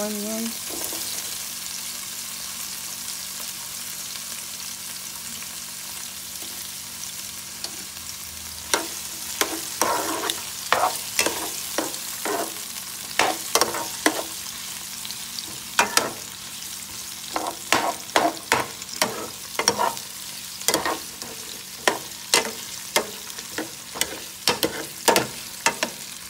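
Sausages and onions sizzling in a frying pan, a steady hiss. From about a third of the way in, a utensil scrapes and knocks against the pan again and again as the food is stirred.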